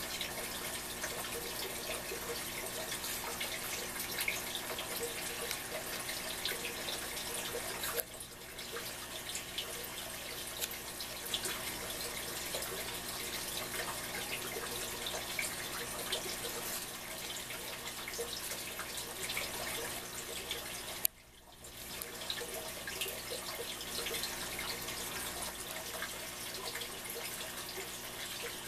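Aquarium water running and bubbling steadily, with a fine crackle of small splashes and bubbles. The sound drops away sharply for a moment about 8 seconds in and again about 21 seconds in.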